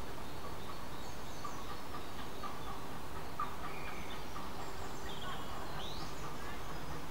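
Woodland birds singing, a scatter of short chirps and quick sweeping whistled calls, over a steady low rush of wind.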